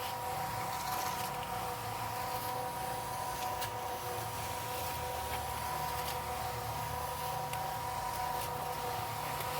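Powered concrete mixer running steadily, its motor giving an even whine over a low rumble, with a few faint clicks.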